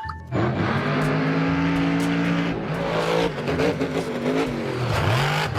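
Monster truck engine revving. It holds a steady note for a couple of seconds, then drops and climbs again near the end.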